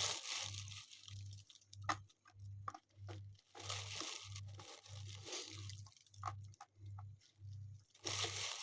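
Khrapovsky natural chalk crunching and scraping as it is handled, bitten and chewed close to the microphone, in dry rustling stretches with sharp cracks. A low hum pulses steadily underneath, about one and a half times a second.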